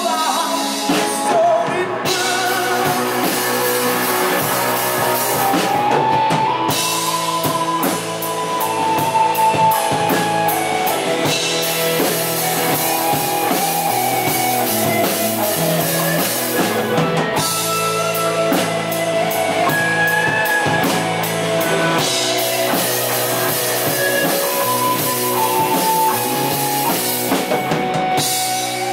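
Live rock band playing an instrumental passage: electric guitars, bass guitar and a drum kit, with a melodic line on top. The cymbals drop out and come back in every few seconds.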